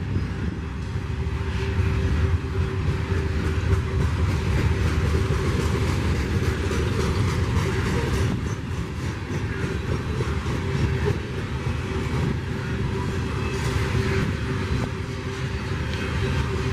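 Freight train rolling past: a steady rumble of wheels on the rails, with a faint steady hum.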